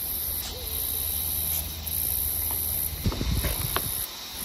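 Insects buzzing in a high-pitched chorus that pulses in bursts of about a second with short breaks, over a steady low rumble; a few soft knocks come about three seconds in.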